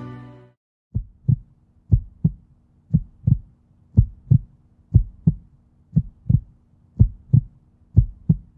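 Music fading out, then a heartbeat sound effect: pairs of short thumps, lub-dub, about once a second, over a faint steady hum.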